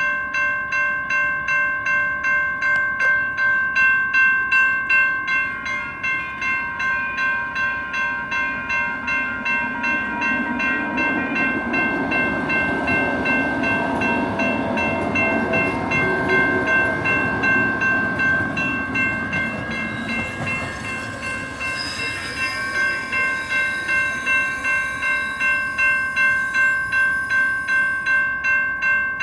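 Electronic railroad crossing bells dinging rapidly and continuously. A light rail train rumbles past through the middle, swelling and fading.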